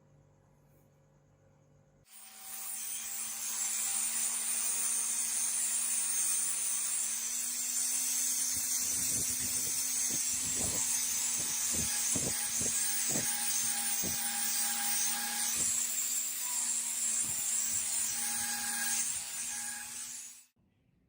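An electric power tool starts about two seconds in and runs steadily with a high hiss over a low hum, with a scatter of sharp clicks through the middle, then cuts off just before the end.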